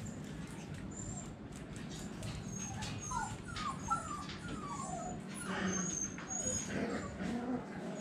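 Phu Quoc Ridgeback puppies whimpering, with a quick run of short squeaky whines about three to five seconds in.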